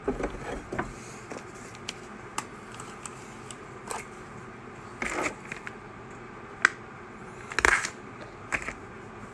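Small parts of a radio-controlled truck being handled by hand: scattered clicks and taps with a few short scrapes, the loudest a clatter about three-quarters of the way through.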